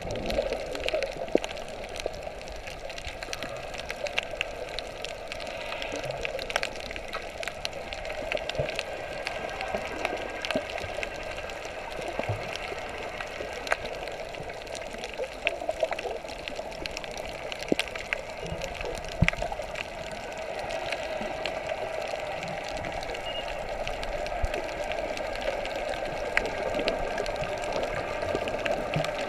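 Underwater sound: a steady, muffled rush of water with many scattered sharp clicks and crackles.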